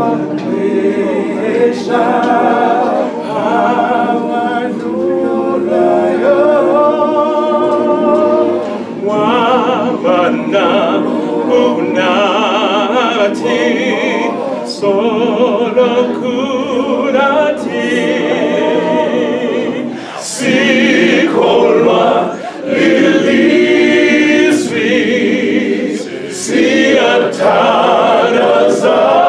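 Unaccompanied men's choir singing a gospel song in harmony, with brief breaks between phrases.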